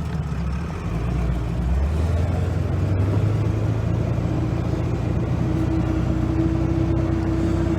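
1999 Ford 7.3 Powerstroke turbo-diesel V8 running under load, towing a 16,000 lb backhoe on a trailer; the engine note climbs about a second in as the truck picks up speed. A steady higher hum joins it past the halfway mark.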